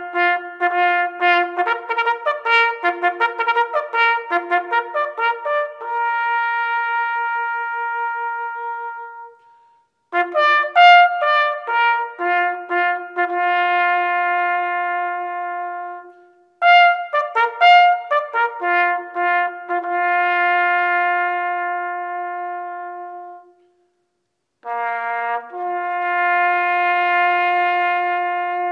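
A bugle call played on a solo brass instrument. It goes in phrases of rapid tongued notes that settle into long held notes, with three short breaks between the phrases.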